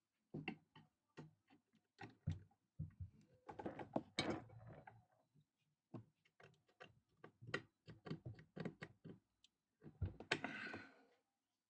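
Hand tools and metal parts of a vintage Pfaff industrial sewing machine being handled during disassembly: scattered light clicks and knocks. There are two short scraping stretches, one about four seconds in and one near the end.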